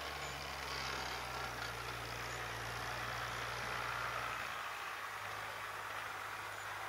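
International Harvester 956 XL tractor's six-cylinder diesel engine running steadily under load while pulling a stubble cultivator, a low, even engine note.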